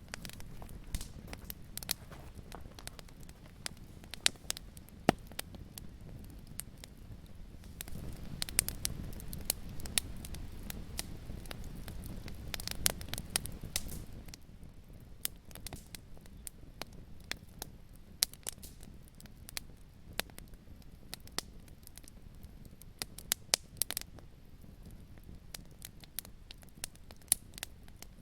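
Wood fire crackling in a fireplace: irregular sharp pops and snaps over a low, steady rumble of the flames, which swells a little in the middle.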